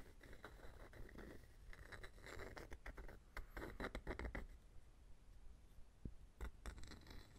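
Rapid light tapping and scratching on wooden objects for about four seconds, then a few separate soft taps near the end.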